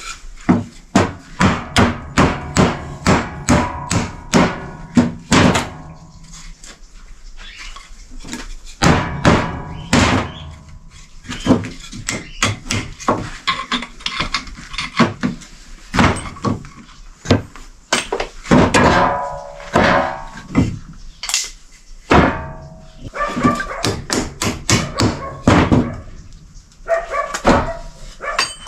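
Repeated hammer-like blows on wood, about two a second in runs with short pauses between, some strikes leaving a brief ringing note.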